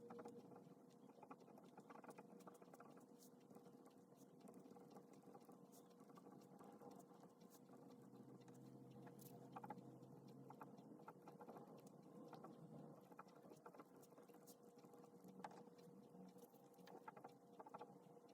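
Faint scratching of a pen writing on paper, in short irregular strokes, over a faint steady hum.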